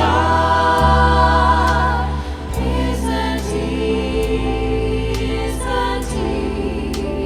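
Background music: choral singing with held, wavering notes over a low sustained bass.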